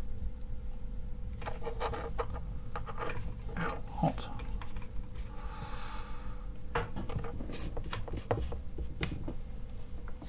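A small circuit board being handled and turned over on a wooden workbench while soldering: scattered light clicks, taps and scraping, with a short hiss about halfway through.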